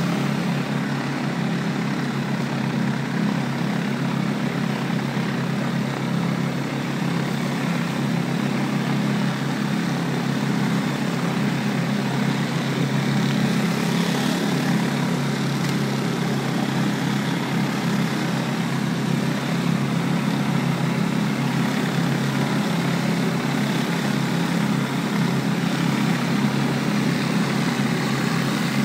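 Pressure washer engine running steadily, with the hiss of high-pressure water from a rotary surface cleaner spraying brick pavers.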